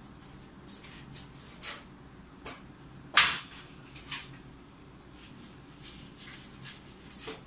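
Scattered short rustles and clicks, with one louder rustle about three seconds in.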